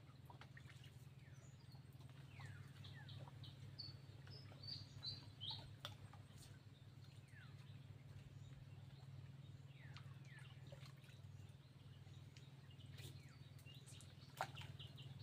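Small birds chirping in short, high calls and brief downward-sliding notes, in two spells, over a faint steady low hum. A single sharp click sounds near the end.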